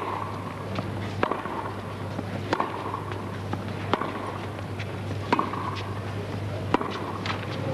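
Tennis rally: racquets striking the ball about every one and a half seconds, five sharp hits in all, with fainter ticks of the ball bouncing on the court between them.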